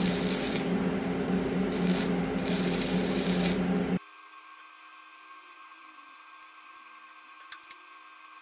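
Stick welder arc running a bead onto the end of a broken-off motor mount bolt: a steady crackling hiss over a buzzing hum. The arc breaks off suddenly about four seconds in, leaving only a faint hum.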